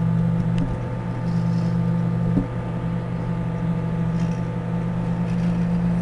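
Microwave oven running with a steady electrical hum while a computer mouse inside it smokes and burns. A couple of faint pops come through, at about half a second and two and a half seconds in.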